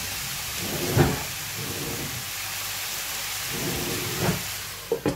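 Grated potato and carrot sizzling in a frying pan, a steady hiss with a couple of dull knocks along the way. A few quick clinks come near the end as a glass lid is set on the pan.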